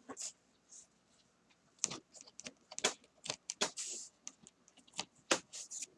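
Irregular small plastic clicks and light taps from model railway locomotives and cars being handled on the track, with short scraping rustles in between.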